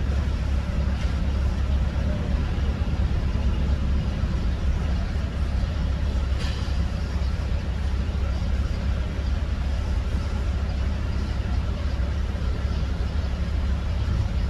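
Steady low rumble of a vehicle inspection suspension tester shaking the front right wheel of a Ford E150 van, heard from inside the van, with one sharp click about six and a half seconds in.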